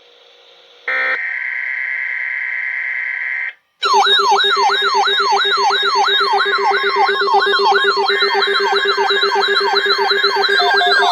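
Emergency alert tones. A steady electronic alert tone starts about a second in and stops at about three and a half seconds. After a short gap, a loud layered alarm of rapidly repeating siren-like wails over steady tones begins.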